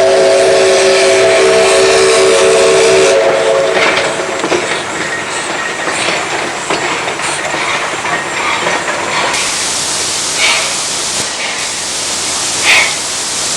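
Chime whistle of a 1918 Vulcan 2-6-2 steam locomotive, several notes sounding together, held for about three seconds and then dying away. After it comes the train's steady hiss and running noise with a few knocks, the hiss growing louder about nine seconds in.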